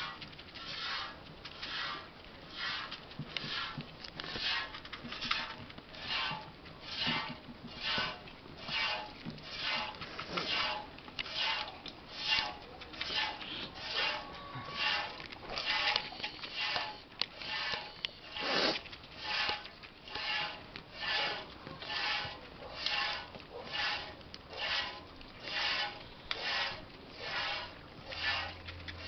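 A goat being milked by hand, with streams of milk squirting into a metal pail that already holds milk. Each squirt makes a short hiss, about three every two seconds, in a steady rhythm.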